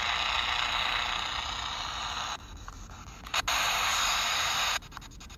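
P-SB7 spirit box sweeping FM radio stations, its small built-in speaker giving a loud hiss of radio static. The static drops out about two and a half seconds in, comes back with a click a second later, and cuts off again near the end.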